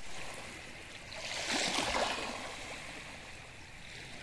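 Small waves lapping and washing up over a sandy shoreline, with one wash swelling louder about a second and a half in before easing off.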